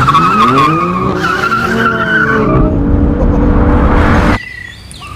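BMW i8 and a second car launching hard from a standing start, tyres squealing and engine notes climbing and dropping through the gear changes. The sound cuts off suddenly about four and a half seconds in.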